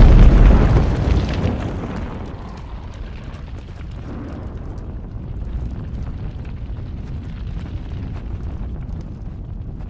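A house blowing up: a huge explosion boom at the start that dies away over about two seconds into a steady low rumble of the blaze with scattered crackles.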